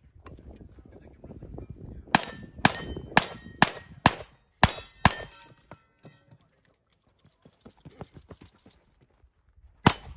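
Revolver shots on steel target plates that ring with each hit: a quick string of seven shots about half a second apart, then a pause, and a new string begins near the end.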